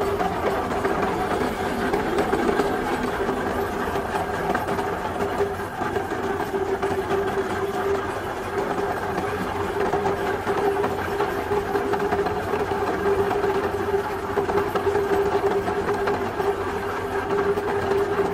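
Heavy machinery running steadily with a constant whine over a rough mechanical noise, as in a concrete pipe works.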